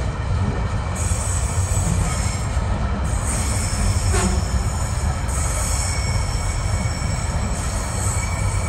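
A freight train's wagons rolling past slowly, with a steady low rumble and a high-pitched wheel squeal that comes and goes. There is one sharp click from the wheels about four seconds in.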